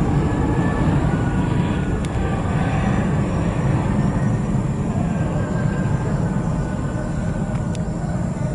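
Jet engines of a departing Airbus A330-300 at climb thrust: a steady, deep rumble that slowly fades as the airliner climbs away.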